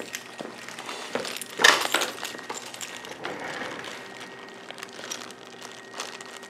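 Small tools and plastic packaging being handled and rummaged through: crinkling plastic and light clicks, with one sharper clatter about a second and a half in.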